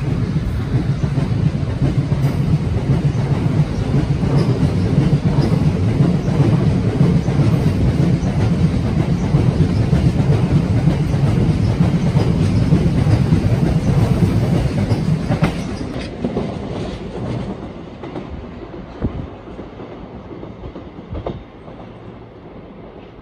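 Freight train wagons rolling past close below, their wheels clattering over the rail joints in a loud, continuous rumble. About 16 seconds in it gives way to a much quieter sound of the train moving away.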